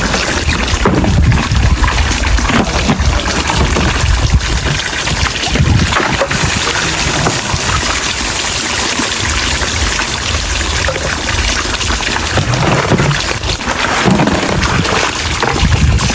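Water pouring and trickling steadily, with occasional low rumbles.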